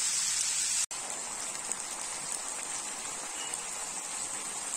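Thin strips of marinated beef sizzling in oil in a frying pan, a steady crackling hiss. About a second in the sound cuts out for an instant and comes back a little quieter, with the meat now cooking in its own juices.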